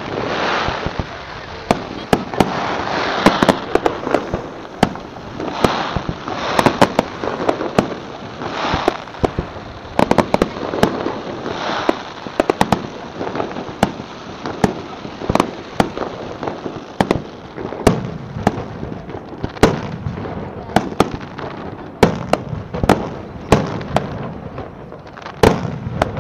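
Aerial fireworks display: shells bursting with sharp bangs in quick succession, often several a second, over a continuous hiss.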